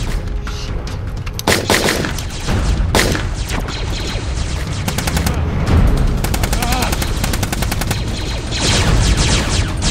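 Rapid gunfire in a firefight: long bursts of automatic fire, with single louder shots about a second and a half and three seconds in.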